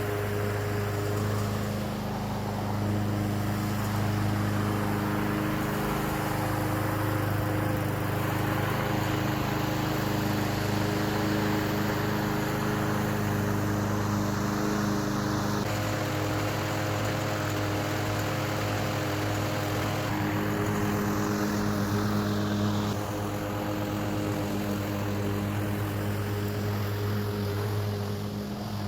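Masport Rotarola rotary lawn mower's small petrol engine running at a steady speed while mowing.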